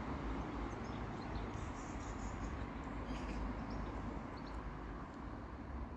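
Steady low rumble of outdoor background noise, with faint, scattered bird chirps.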